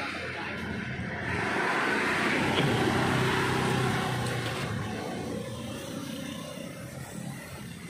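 A motor vehicle passing by: its engine and road noise swell about a second in, then fade away over the last few seconds.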